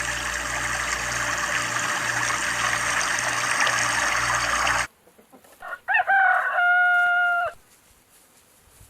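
A rooster crowing once about six seconds in: a short rising start, then one long held note. Before it, a few seconds of dense noise with a low hum run until a sudden cut.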